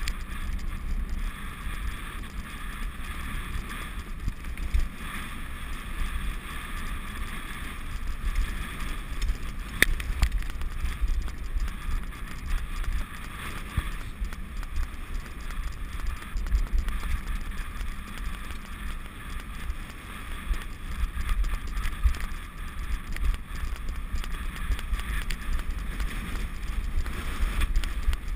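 A bike rolling over a rough dirt trail behind a pulling dog: steady tyre rumble and rattling, with wind on the microphone and an occasional sharp knock.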